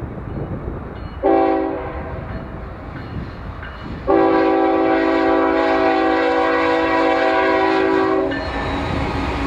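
Multi-chime air horn on a BNSF diesel locomotive sounding a short blast about a second in, then a long blast of about four seconds. The approaching double-stack freight train's engines and wheels rumble underneath.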